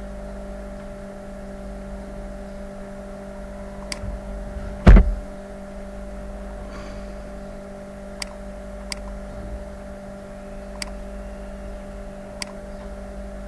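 A few sharp computer mouse clicks over a steady low hum, with one louder knock about five seconds in.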